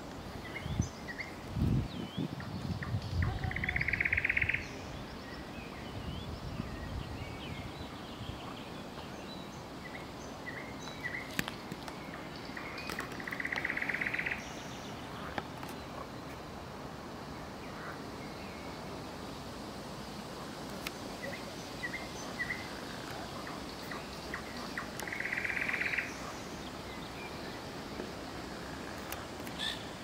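Small birds chirping and twittering, with three harsh, drawn-out gull calls about ten seconds apart. A low rumble sits under the first few seconds.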